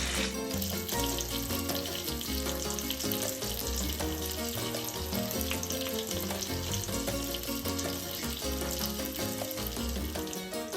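Isan-style Thai sausages sizzling and crackling as they fry in a pan, under background music with a bass line.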